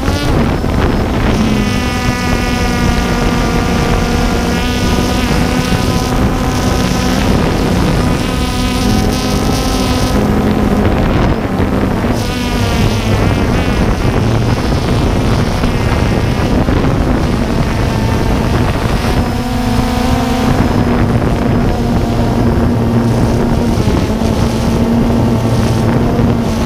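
Quadcopter drone's electric motors and propellers whining right next to the onboard camera's microphone, with wind noise. The pitch of the whine shifts up and down several times as the motors change speed while the drone manoeuvres.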